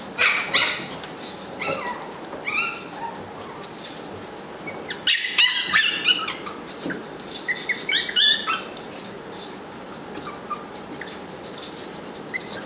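Toy-breed puppies, Chihuahuas and Pomeranians, yapping in high-pitched yips and barks during play, in short flurries with the densest burst about five seconds in.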